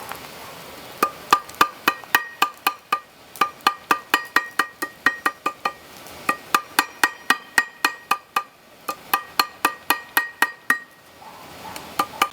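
Hand hammer striking steel on a railroad tie plate used as an anvil, in quick runs of about four to five blows a second with short pauses between runs. Each blow rings with a clear metallic tone.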